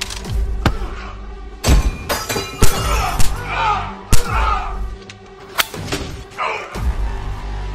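Staged fight sound effects: a rapid series of sharp hits and thuds, with men's strained grunts and cries of pain between them, over a low music bed.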